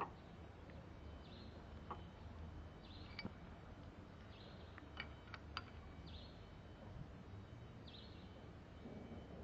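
Faint, scattered light metal clicks from handling the timing chain, cam sprocket and wrench on an engine being reassembled. A short high chirp repeats about every second and a half over a low steady hum.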